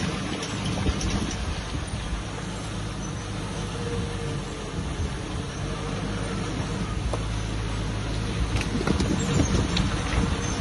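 Bulldozer's diesel engine running steadily, with a few sharp metallic clanks near the end.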